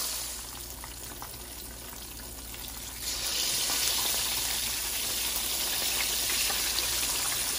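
Breaded whiting fillets sizzling as they deep-fry in hot oil in a pan, a steady crackling hiss. It is quieter at first and louder from about three seconds in.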